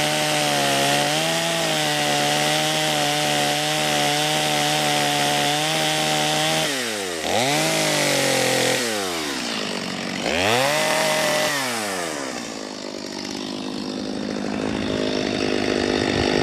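Chainsaw running at full throttle, cutting the wedge-shaped open face notch into a standing tree trunk. About seven seconds in, the throttle is let off and opened again three times, the pitch falling and rising sharply each time. The saw then drops to idle.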